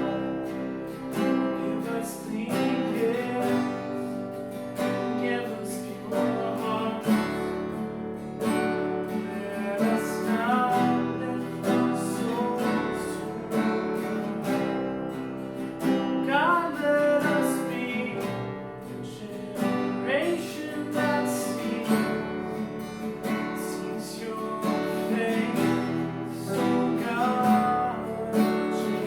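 Worship music led by a steadily strummed acoustic guitar.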